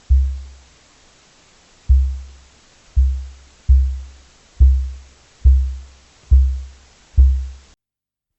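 Eight deep, booming thuds, each struck sharply and dying away within about half a second, coming at uneven intervals about a second apart, then cutting off abruptly.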